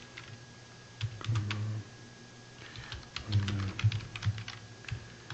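Typing on a computer keyboard: irregular keystroke clicks as a short line of text is entered.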